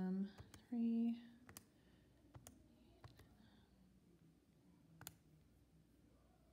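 Keys of a TI-84 Plus graphing calculator being pressed: a handful of separate, sharp plastic clicks at irregular intervals, as a function is keyed in.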